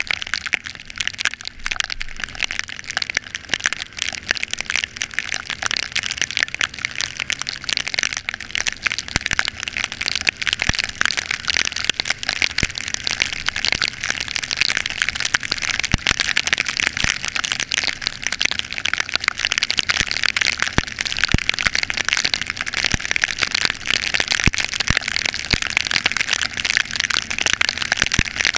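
Heavy rain hitting the microphone as a dense, continuous crackle of drops, with the Yamaha Factor 125 motorcycle's engine faint underneath.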